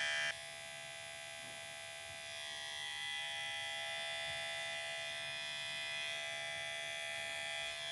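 Kemei KM1986+PG cordless hair clipper running with a steady electric buzz and whine; it drops abruptly in level about a third of a second in, then runs on steadily.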